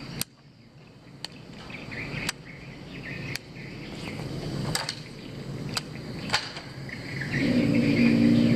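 Outdoor ambience with insect chirping, a few sharp clicks about once a second, and a steady low hum that comes in near the end.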